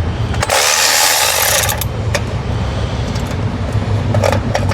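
Impact wrench run in one burst of about a second and a half, starting about half a second in, working a tie-rod nut loose. A steady low hum runs underneath, and a few sharp clicks follow later.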